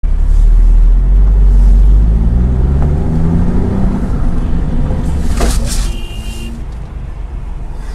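Car engine and road rumble picked up inside a dashcam car, the engine rising in pitch in the first few seconds. About five and a half seconds in comes a single short, sharp crash as a sedan ahead strikes an SUV.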